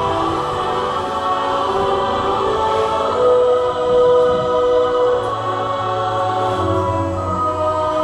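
Choral music: voices singing long held notes in chords that change every second or two, with a lower note coming in about halfway through.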